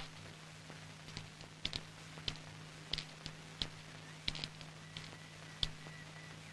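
A series of light, sharp clicks and taps, irregularly spaced at about one or two a second, over a faint steady low hum.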